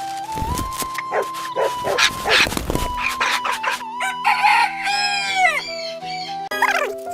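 Animal calls over background music: a run of short, sharp calls, then one long call that falls in pitch about halfway through.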